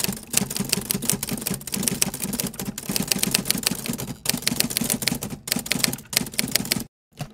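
Typewriter keys clacking in quick runs with a few short pauses, stopping near the end.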